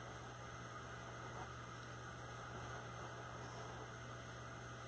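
Steady low electrical hum with a faint even hiss: quiet room tone.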